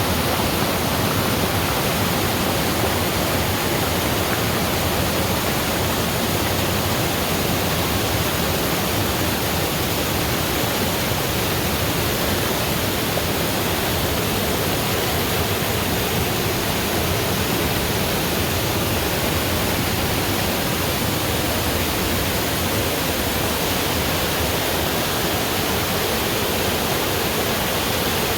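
Waterfall rushing, a steady, loud, even roar of falling water.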